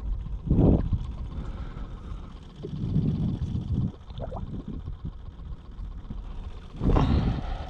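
Wind buffeting the microphone in gusts, three louder ones, with small waves lapping at a stopped boat's hull.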